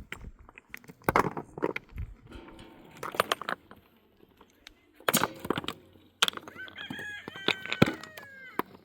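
A rooster crowing, one long call starting about six seconds in that drops in pitch at the end. Before it come a few sharp knocks and scrapes.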